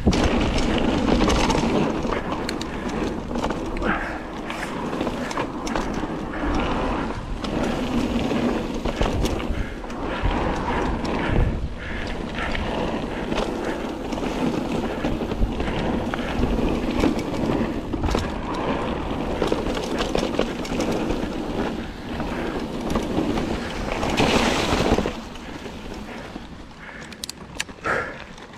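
Mountain bike descending a gravel and dirt trail: a steady rush of tyre noise over loose ground with frequent clatter and knocks from the bike rattling over bumps, dying down near the end.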